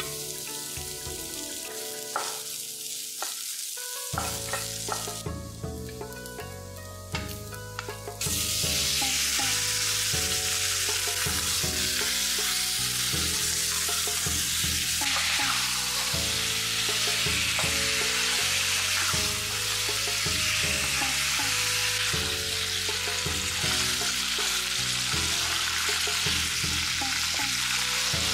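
Garlic and ginger frying in oil in a nonstick wok, with a few spatula scrapes. About eight seconds in, pork belly pieces go in and the sizzle jumps much louder, then holds steady as a wooden spatula stirs the meat.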